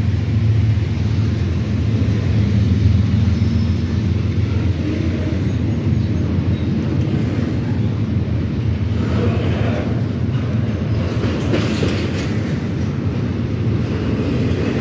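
Norfolk Southern double-stack intermodal freight train passing close by: a steady low rumble of wheels on rail from the loaded well cars, with a stretch of higher-pitched clatter about two-thirds of the way through.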